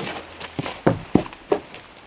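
Booted footsteps on wooden deck planks: several heavy steps, the loudest a little before and after a second in.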